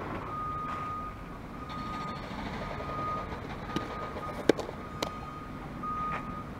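Windmill softball pitch thrown as a curveball: a few sharp smacks, the loudest about four and a half seconds in, with the release and the ball into the catcher's mitt. A faint steady high whine sits under it.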